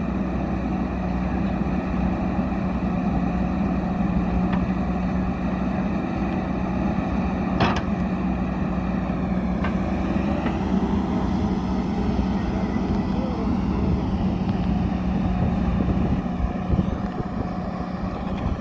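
JCB backhoe loader's diesel engine running steadily under working load, with a single sharp metallic knock about eight seconds in.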